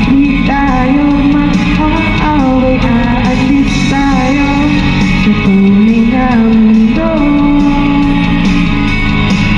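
Karaoke song: a singing voice carrying the melody over a guitar backing track, played through the car's speakers.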